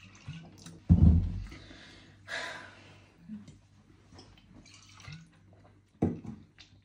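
A shot of pink gin being taken: a loud knock about a second in, faint liquid and mouth sounds, a short hiss a little later, and another knock near the end.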